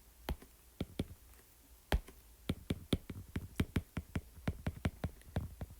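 Keys being pressed: a few single clicks, then from about halfway a quick run of about five clicks a second, as figures for a calculation are keyed in.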